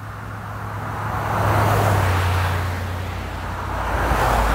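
Road traffic: two vehicles passing one after the other, the engine and tyre noise swelling to a peak about a second and a half in and again near the end.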